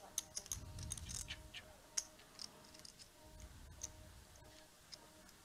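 Faint, irregular clicking of poker chips being handled at the table.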